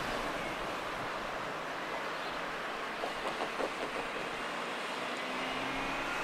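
Road traffic hiss from cars passing along the street, with a Mini hatchback driving by close about halfway through and a short run of quick light knocks as it goes. Near the end a faint whine rises from the approaching Alstom Citadis tram.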